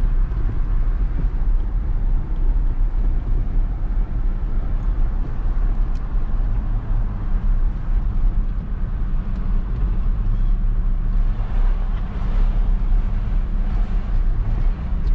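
Steady low rumble of a vehicle driving on the road, engine and tyre noise heard from inside the cabin.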